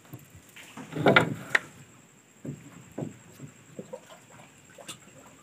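Scattered light knocks and taps on wooden floor planks and the water below them, with a louder muffled knock about a second in, as a hand works at the edge of a hole in the boards.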